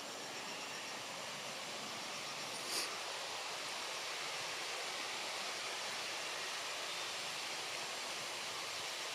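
Steady outdoor background hiss, with one short sharp sound nearly three seconds in.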